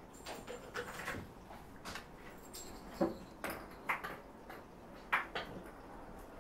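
Scattered light knocks, clicks and rustles of handling and movement, irregular, with the sharpest knocks about three and five seconds in.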